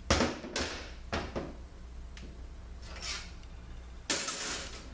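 Metal automatic-transmission parts being handled on a workbench: a few short knocks and clinks, then a brief scraping slide near the end, over a steady low shop hum.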